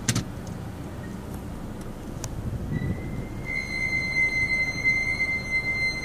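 2011 Nissan Altima's brakes squealing as the car rolls slowly: one steady high-pitched squeal that sets in a little before halfway and holds, over a low rumble. A sharp click sounds right at the start.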